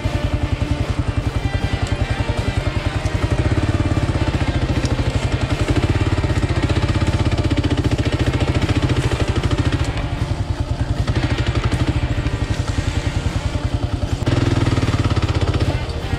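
Kawasaki KLR 650's single-cylinder four-stroke engine pulling the loaded bike at low speed on rough dirt, with an even, rapid beat. It picks up briefly near the end.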